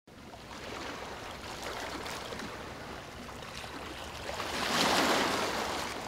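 Small sea waves breaking and washing up on a sandy shore, a steady hiss of surf that swells to its loudest about five seconds in.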